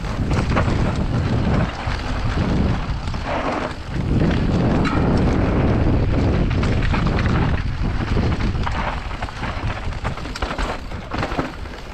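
Mountain bike descending a rough dirt and rock trail: tyres rolling over the dirt and the bike rattling over bumps, under loud, rumbling wind buffeting on the camera microphone that rises and falls with the riding.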